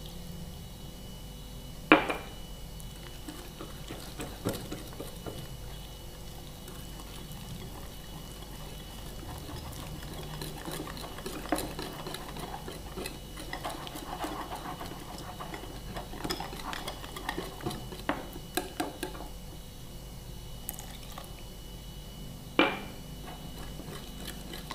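A wire whisk beating gram-flour batter in a ceramic bowl: quick scraping and small clinks of the wires against the bowl, busiest in the middle stretch. Two sharp knocks stand out, about two seconds in and near the end.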